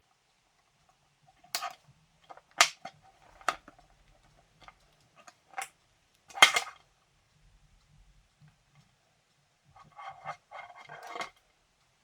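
Cutters snipping through an electrical power cord: five sharp snaps spread over about five seconds, the loudest about six and a half seconds in. A run of lighter clicks and rattles follows near the end.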